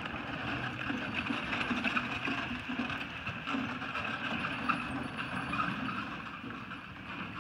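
Horse-drawn four-wheeled marathon carriage rolling and rattling over soft arena footing behind a trotting pony, with hoofbeats. It grows louder as it passes close and eases off near the end.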